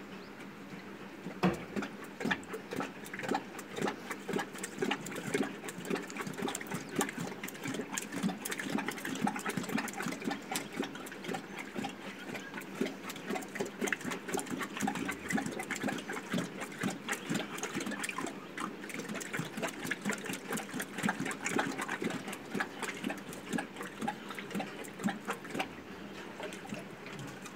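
Asiatic lions lapping water from a stone tank: a fast, irregular run of wet laps, several a second. It starts about a second and a half in and eases off near the end.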